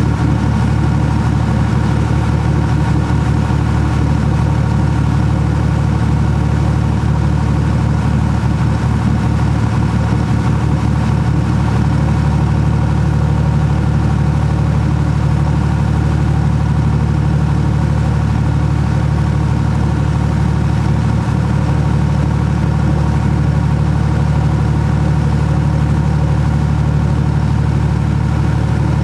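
Towboat's engine running steadily at an even speed under load while towing a sailboat on a line.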